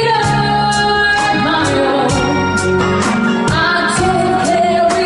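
A band playing a song with a woman singing long held notes, over bass and a drum beat with regular cymbal strokes.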